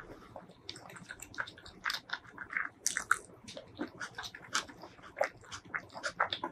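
Close-miked chewing of a mouthful of rice eaten by hand, with many quick, wet mouth clicks and smacks.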